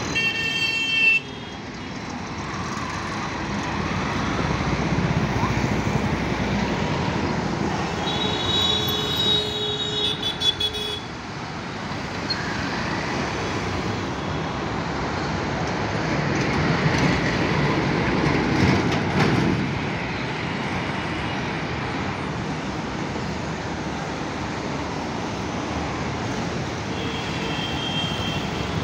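Traffic on a busy city road: engines and tyres of passing motorbikes, auto-rickshaws and trucks, with short vehicle horn toots near the start, about a third of the way in, and again near the end.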